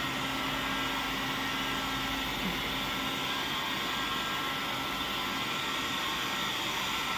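Handheld hair dryer running steadily, blowing air on its first, cold-air setting.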